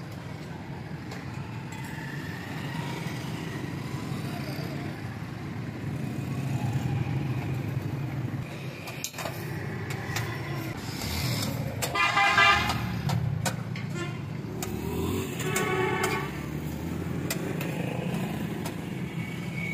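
Street traffic rumbling steadily, with a vehicle horn sounding twice, about twelve seconds in (the loudest moment) and again about four seconds later.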